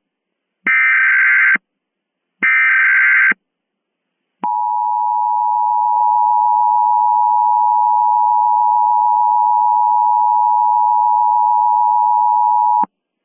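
Emergency Alert System tones for an Emergency Action Notification. Two short bursts of SAME digital header data, each just under a second long, close out the header. About four seconds in, the steady two-tone EAS attention signal starts, holds for about eight seconds and cuts off abruptly.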